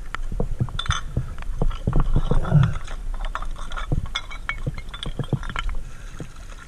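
Underwater sound: a run of small knocks and clicks as a gloved hand picks up an aluminium can and a glass bottle among river rocks, over a low steady rumble of water.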